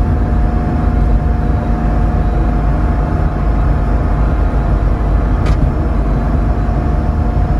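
Steady in-cabin running noise of an air-cooled Porsche 911 with its flat-six engine, a deep rumble from the engine and road, with a steady whine over it. A single short tick comes about five and a half seconds in.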